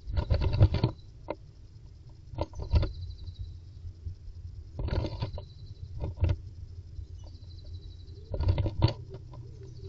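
Blue tit moving inside a wooden nest box: bursts of scratching, fluttering and scrabbling against the box, about five times.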